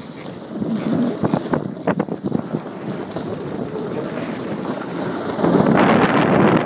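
Snowboards sliding and scraping over packed, chopped-up snow, with wind buffeting the microphone; the scraping grows louder about five and a half seconds in.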